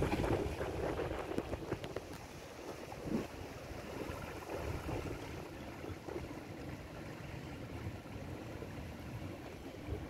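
Small waves lapping and splashing against the rocks of a shallow rock pool, with wind rumbling on the microphone. Loudest in the first second, then settling to a steadier wash with a splash about three seconds in.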